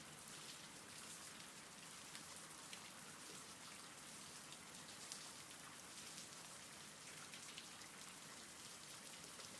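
Faint, steady rain ambience: a soft even hiss of rainfall with scattered light drop ticks.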